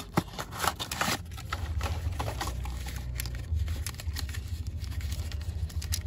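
Cardboard toy box with a plastic window being opened and its cardboard insert slid out: sharp crackles and scrapes of cardboard and plastic in the first second, then softer handling rustle over a steady low rumble.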